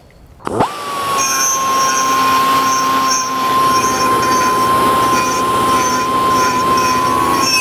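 Die grinder with a small bit starting up about half a second in and running at a steady high whine as it grinds the inside of a polished aluminium carburetor hat, smoothing its internal transitions.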